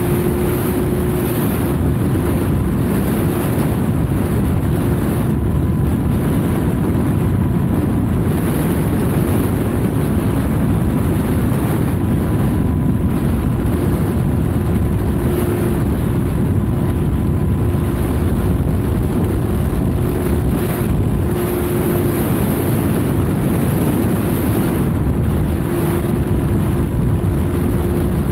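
Twin electric motors and propellers of a small cardboard RC plane humming steadily in flight, with a held tone and wind rushing over the onboard microphone.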